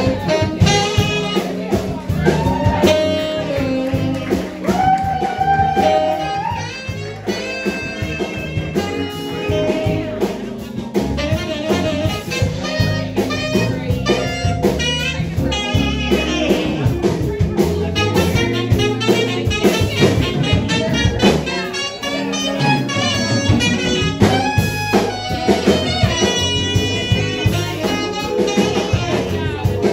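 Live jazz band playing: saxophone, electric guitar and drum kit.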